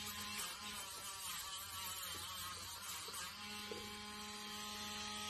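Steady low electrical hum, with a second steady higher tone joining about three and a half seconds in.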